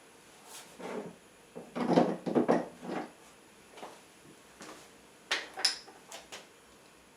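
A run of knocks and clunks from hard objects being handled, loudest about two seconds in, then a couple of sharp clicks a little after five seconds.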